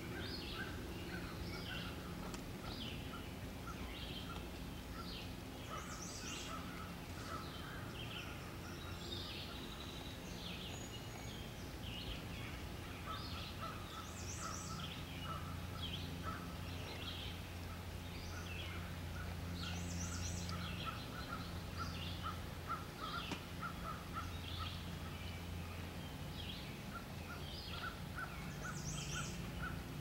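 Several wild birds calling and singing at once, with many short chirps and quick runs of repeated notes, and one higher call coming back every several seconds. A steady low hum runs underneath.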